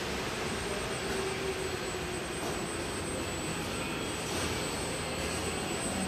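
SKP PR 5000 VG marquee-cover washing machine running: a steady mechanical drone with a thin, faint high whine over it.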